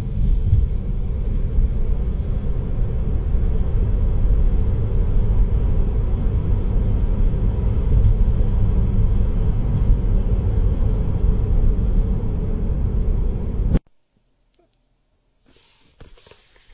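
Steady low road and tyre rumble inside the cabin of a moving Tesla Model 3, with a faint steady high hiss above it. It cuts off abruptly about fourteen seconds in, leaving near silence.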